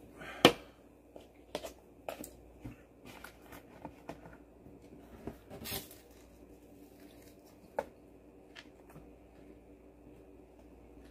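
An aluminium beer can knocked down onto the table about half a second in, followed by light clicks of wooden chopsticks against a plastic tub and the crunch and chewing of crispy fried guobaorou pork, loudest as a bite is taken just before the middle.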